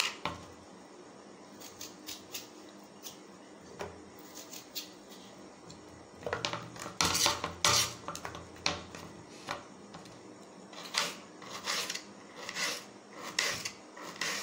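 Kitchen knife slicing a potato held over a plate, the blade clicking and scraping against the plate in irregular taps. The taps come sparsely at first and much more often from about halfway through.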